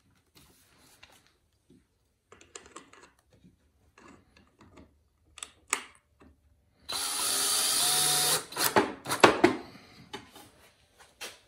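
Cordless drill driving screws into the corners of a pine frame: one steady run of about a second and a half past the middle, then a few short bursts. Light knocks of the wood being handled come before it.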